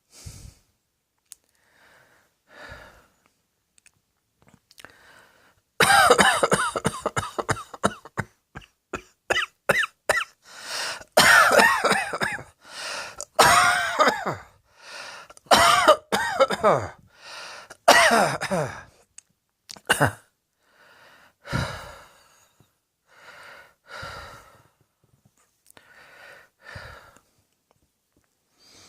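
A person coughing: a few faint breaths, then from about six seconds in a long fit of loud coughs in quick runs, easing after about nineteen seconds into fewer, softer coughs and breaths.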